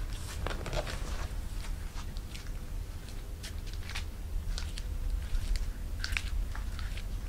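Footsteps of 5-inch stiletto-heel sandals on carpet: a rustle and a few clicks as the wearer stands up, then soft, irregular steps.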